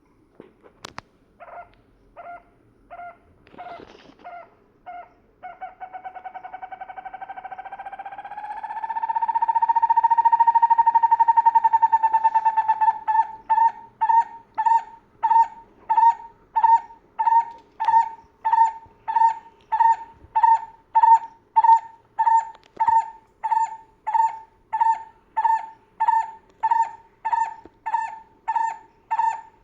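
A bird calling: a few short hoot-like notes, then a long trilled note that climbs in pitch and swells, then a steady series of short notes, about one and a half a second.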